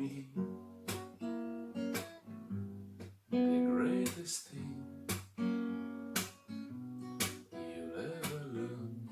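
Instrumental music: a plucked acoustic guitar sounding chords about once a second, each ringing on until the next.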